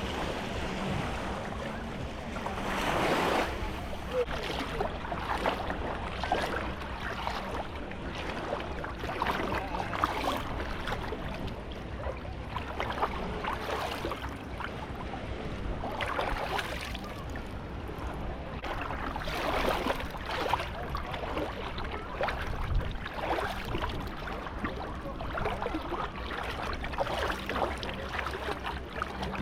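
Small sea waves breaking and washing onto the beach, swelling every few seconds, with wind rumbling on the microphone.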